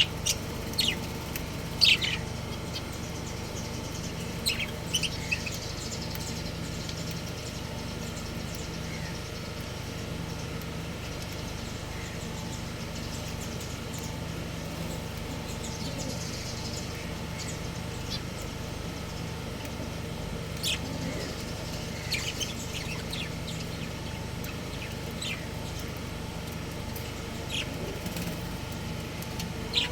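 Budgerigars chirping in short, high calls, in clusters in the first few seconds and again in the last ten, over a steady low hum.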